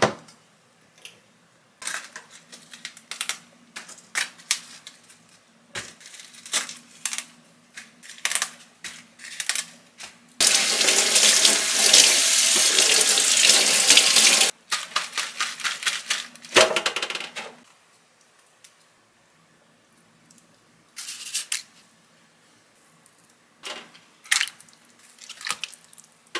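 Kitchen tap running into a stainless steel sink for about four seconds while napa cabbage leaves are rinsed. Before and after it come scattered clicks and knocks of leaves being handled and kitchenware being set down.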